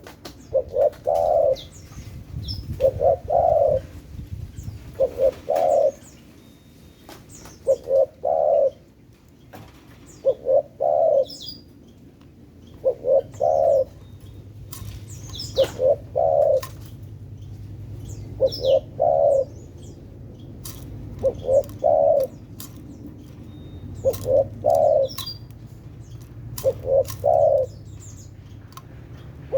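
Spotted dove (tekukur) cooing over and over, a short phrase of two or three notes about every two and a half seconds. Faint high chirps from other small birds come between the phrases.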